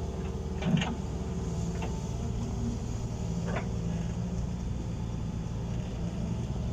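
Heavy diesel engine of construction machinery running steadily at a work site. A sharp knock comes about a second in, and two fainter knocks follow.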